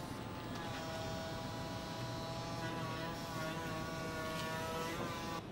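Volvo ECR25 Electric battery-powered compact excavator working: a steady whine from its electric motor and hydraulic pump, with no diesel engine note. The pitch bends briefly at the start and again near the end as the machine's load changes.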